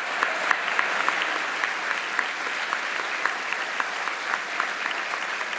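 A large audience applauding, with dense, sustained clapping and individual louder claps standing out.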